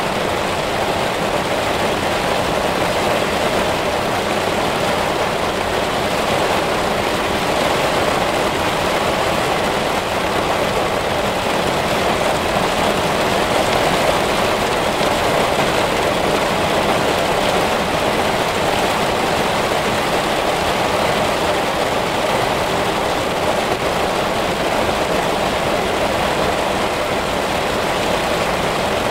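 Heavy rain pouring down, a steady, even hiss that does not let up.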